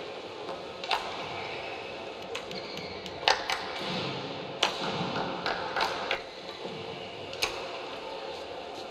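Badminton rackets striking a shuttlecock in a singles rally: about half a dozen sharp, crisp hits at irregular spacing over a low hall ambience.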